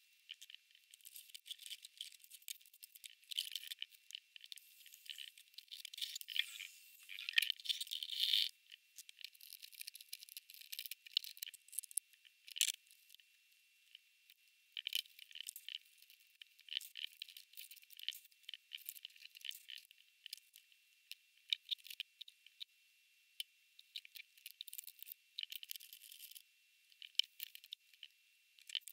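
Dense, irregular crackling and clicking of a praying mantis (Sphodromantis aurea) chewing through a locust's hard body, heard only in the high range, busiest about six to eight seconds in. A faint steady high tone runs underneath.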